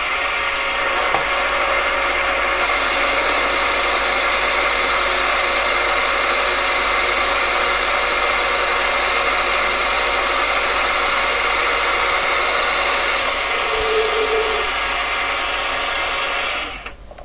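AMA 714B mini lathe running under power with a steady multi-tone whine from its motor and gearing, while the tool takes a light 0.1 mm cut along an aluminium bar. The sound stops abruptly near the end when the machine is switched off.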